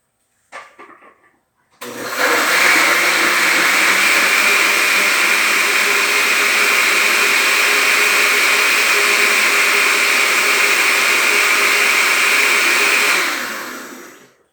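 Countertop blender running steadily at high speed, blending cucumber, soursop and lemon juice, then winding down near the end. A few light knocks come just before it starts.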